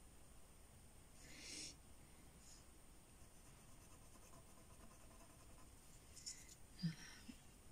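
Faint scratch of a fine pen drawing a freehand line along a watercolour card's edge, about a second in. Near the end the card is lifted and turned on the cutting mat, with a light rustle and a soft knock.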